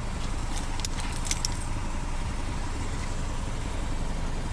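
A few light metallic clinks and jingles in the first second and a half, like small tools or metal parts being handled, over a steady low mechanical rumble from an engine running close by.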